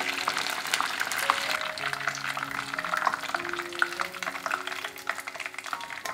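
Chicken wings deep-frying in hot oil: a dense, crackling sizzle that thins out near the end.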